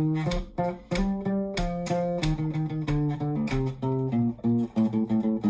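Taylor acoustic bass guitar played fingerstyle: a quick, funky run of single plucked notes, several a second, with some short muted plucks between them.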